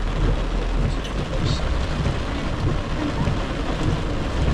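Rain on a moving car's windshield and roof, heard from inside the cabin over a steady low rumble of engine and tyres on a wet road.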